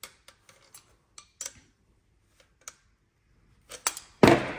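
Pincers gripping and turning a thumbscrew on a metal plough plane, giving small metallic clicks and taps, then a louder clunk of the metal plane being handled about four seconds in.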